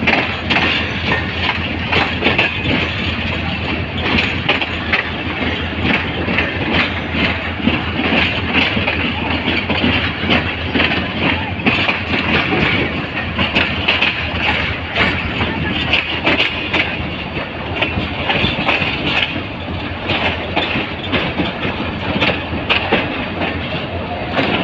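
Passenger train coach running along the track, heard from its open doorway: a steady rumble of wheels on rails with frequent clicks and clacks.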